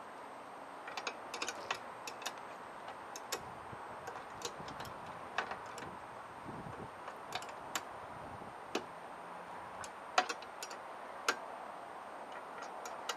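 Irregular small clicks and taps of metal hardware as a CB antenna's mirror-mount bracket is handled and fitted on a pickup's side mirror, over a faint steady hiss.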